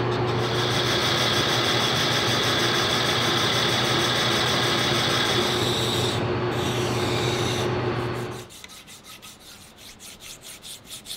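Metal lathe running steadily with a low hum and a high whine while turning a steel flange, then a hand file held against the spinning flange. About eight seconds in the machine sound stops, and hand filing follows at about three strokes a second.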